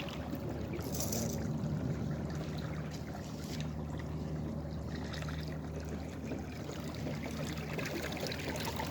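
Water trickling and lapping as a kayak moves along the lake, over a steady low hum.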